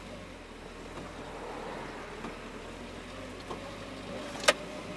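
GAZelle van running and rolling slowly, heard from inside the cab as a steady engine hum with road noise. A single sharp click sounds about four and a half seconds in.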